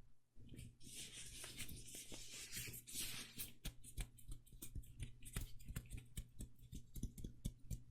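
Medical-gloved fingertips rubbing and pressing, a soft rubbing hiss broken by a dense run of small crackles and clicks.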